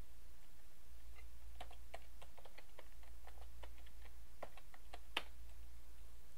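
Typing a password on a computer keyboard: a quick, uneven run of key clicks lasting about four seconds, ending with one sharper, louder click.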